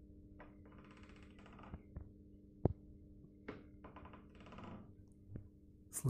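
Gears inside a Miele VivaStar W300 washing machine grinding a little in two short rasping spells, with scattered clicks over a steady low hum, as the just-switched-on machine starts its programme.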